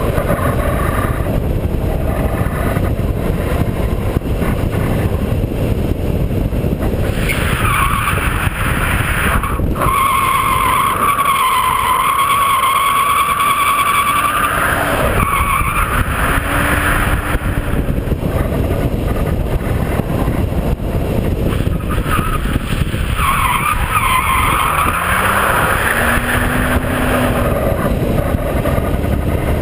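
BMW E36 328i drifting: its engine running hard under heavy wind rush on the body-mounted camera, with the tyres squealing through two slides, a long one from about a quarter of the way in to halfway and a shorter one near the end.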